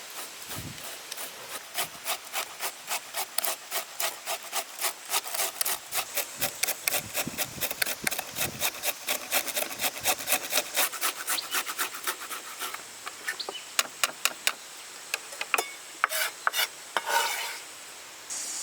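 Rapid, even rasping strokes, about four a second, of pig ear being worked by hand, which thin out after about 13 s into a few scattered strokes.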